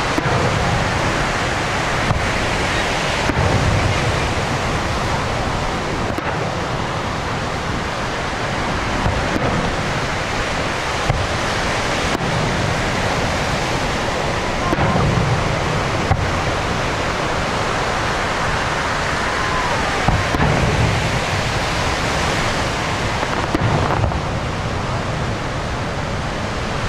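Fireworks bursting in an irregular series of booms and sharp cracks, over a steady rushing noise like surf or wind.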